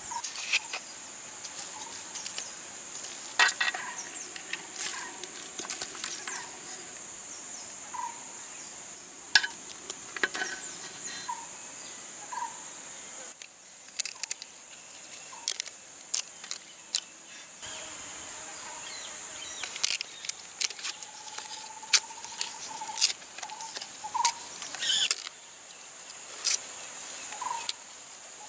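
Irregular sharp clicks and crackles of hands snapping dry cinnamon bark and tearing green leaves into a clay pot of onions and chillies. A steady high drone of insects runs underneath.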